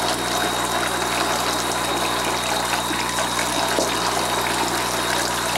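Water running steadily from a bathroom sink tap into a plastic baby bath.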